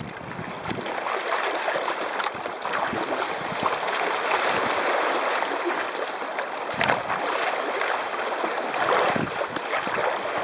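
Water rushing and splashing along the hull of a sailing kayak moving fast through choppy waves, with wind gusting on the microphone now and then.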